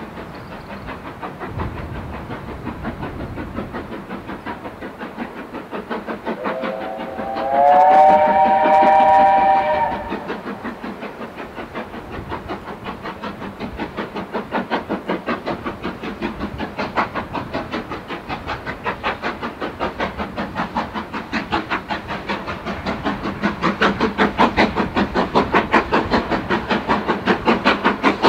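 BR Standard 4MT steam locomotive approaching under power, its exhaust beats growing louder as it nears. About seven seconds in, its whistle sounds once for about three seconds, a chord of several tones that rises slightly as it starts.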